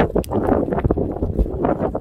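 Wind buffeting the phone's microphone: a low rumble with rough, irregular gusts, and scattered short clicks among them.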